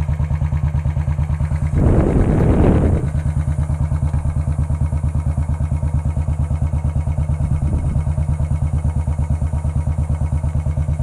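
Royal Enfield 350 single-cylinder motorcycle engine idling with an even, steady thump, and a brief louder burst of noise about two seconds in.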